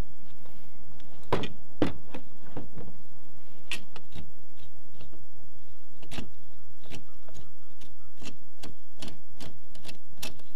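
Irregular small clicks and ticks, a couple each second, from a plastic rudder bracket and its long screw being worked loose by hand.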